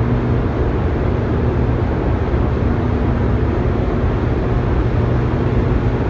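Steady hum of the hydroelectric generating units running in the dam's powerhouse: a constant low electrical hum under a broad, even rushing noise of the machinery.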